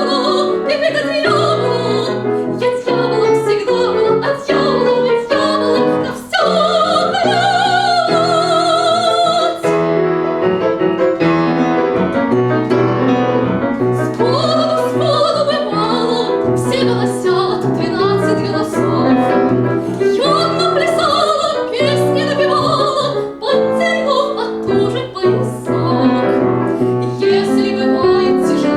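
A soprano sings an operetta aria with piano accompaniment. About six seconds in she holds a long note with vibrato; then the piano plays alone for a few seconds before the voice comes back in.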